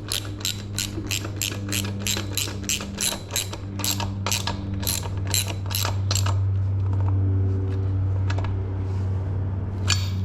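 A hand ratchet wrench clicking steadily, about three clicks a second, as the front axle nut of an electric dirt bike is tightened, stopping about six seconds in. A steady low hum runs underneath.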